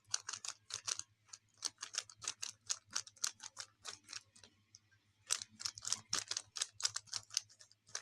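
Plastic Rubik's cube layers being turned quickly, a rapid run of clicks about four a second, pausing briefly a little past the middle before starting again.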